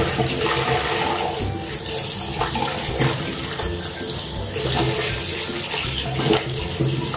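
Water running from a tap into a sink as clothes are scrubbed by hand in it, with irregular splashes and sloshing of wet fabric.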